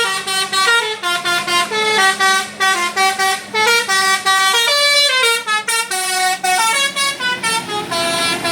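Bus telolet basuri horn playing a quick tune, one short note straight after another, stepping up and down in pitch.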